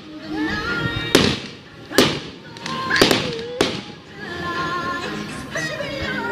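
Aerial firework shells bursting with four sharp bangs in the first four seconds, each trailing off in an echo, over loud music playing along with the display.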